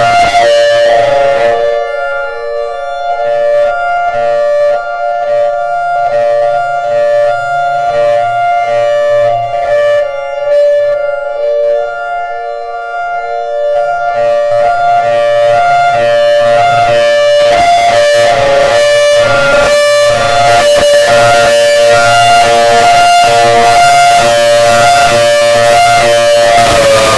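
Outdoor warning siren sounding a loud steady alert on two notes at once, with a rapid rise and fall in the sound as it sweeps. It starts to wind down in pitch at the very end.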